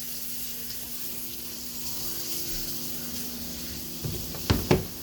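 Burger patty sizzling in a frying pan, a steady hiss, with a couple of sharp knocks near the end.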